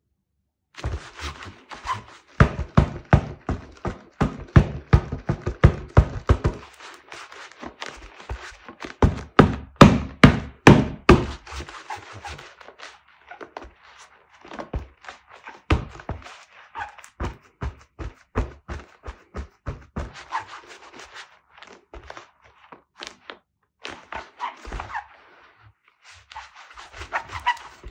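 Quick runs of dull thuds, several a second, loudest in two bursts about three and ten seconds in, with sparser knocks after.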